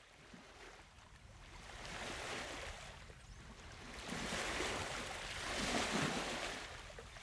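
Ocean waves washing in, a rushing surf sound that swells and recedes about three times. It rises from silence at the start.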